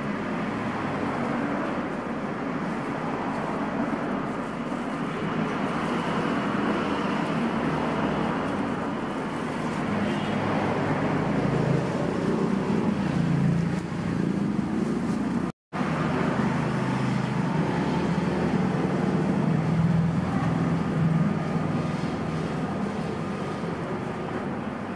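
Steady street background noise of passing traffic, a continuous rumbling hiss with no clear single event. The sound cuts out completely for a moment about two-thirds of the way through.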